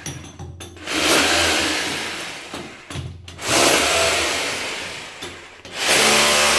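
Handheld electric power tool's motor running in three bursts, each starting loud and trailing off before the next, with a steady whine in the last one.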